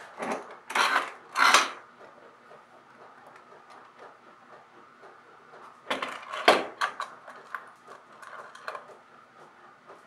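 Steel bar clamps clattering as they are set onto a glue-up of boards and their jaws slid and tightened: three longer metal clatters in the first two seconds, then a run of sharper clicks and knocks from about six seconds in.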